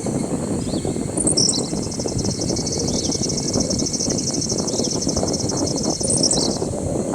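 Tropical forest insects buzzing: a high, pulsing insect trill starts about a second and a half in and stops near the end, over steady high insect tones, with a few short bird chirps. Beneath it runs a steady low rushing noise.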